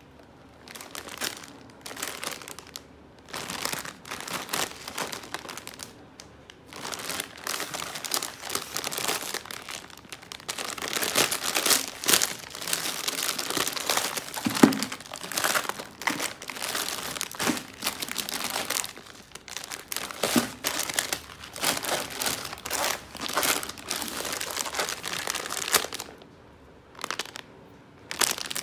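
Plastic instant-ramen packaging crinkling and rustling as hands rummage in a multipack bag and handle the single packets, in uneven spells with short pauses between them.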